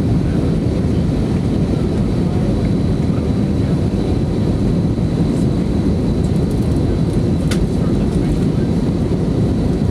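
Steady low roar of an Airbus A320-232's IAE V2500 engines and rushing air, heard inside the passenger cabin, with a faint high whine and one short click about seven and a half seconds in.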